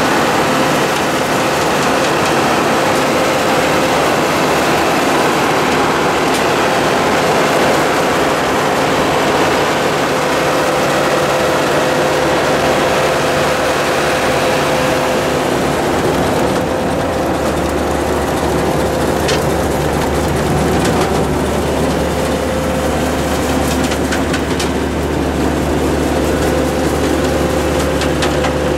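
Pull-behind side-mount blueberry harvester working a row of bushes behind its tractor: a steady machinery clatter and engine noise with a constant hum through it, a deeper engine drone coming in about two-thirds of the way through.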